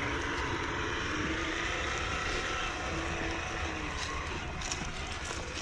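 Traxxas TRX4 RC crawler driving, its electric motor and gear drivetrain giving a steady whir with a faint whine that shifts a little in pitch, and a few light clicks near the end.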